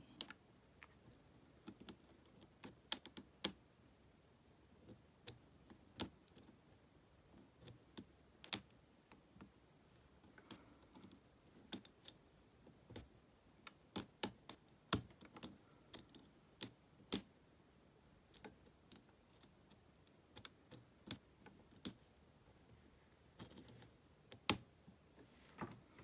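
Irregular small metallic clicks and ticks of a steel hook pick working the pin stacks of a Lockwood 120N brass padlock under a tension wrench: single-pin picking, feeling which pins are springy, binding or overset.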